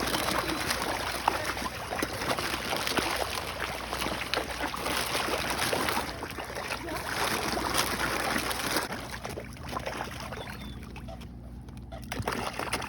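Water splashing and sloshing with many small quick splashes, as a crowd of fish churns the lake surface going after thrown food. It eases off about two-thirds of the way through.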